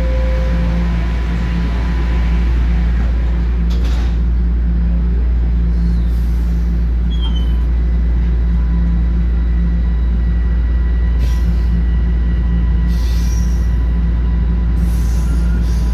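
Inside a TTC Line 1 subway car: the train's steady low rumble and hum, with a faint steady whine above it.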